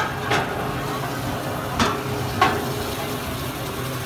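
Bumper boat motors running with a steady low hum over the rush and slosh of churned water, broken by three short, sharp sounds.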